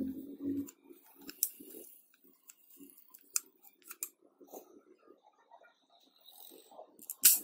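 Light clicks and knocks of a handmade wooden toy gun being handled and turned in the hand, with one sharp, loud click near the end.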